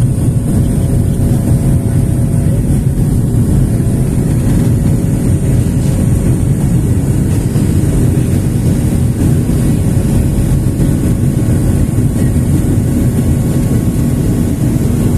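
Steady engine and airflow noise of a jet airliner heard from inside the passenger cabin during the climb after takeoff.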